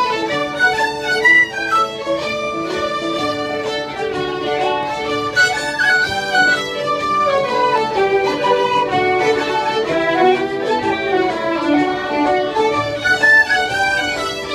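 A group of fiddles playing a tune together, with the melody running up and down in quick notes.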